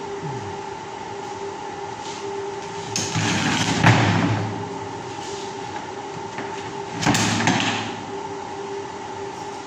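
Large circular steel-rod grill grate clattering and rattling as it is laid flat onto a workbench about three seconds in, with a second shorter rattle of the grate near seven seconds. A steady machine hum runs underneath.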